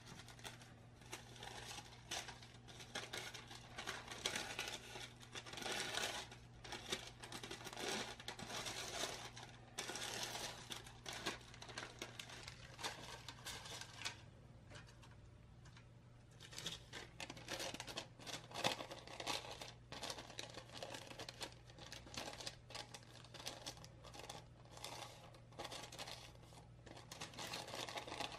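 Baking parchment crinkling and rustling as hands smooth out its creases and press it into a round cake tin, in irregular bursts with a short lull about halfway through.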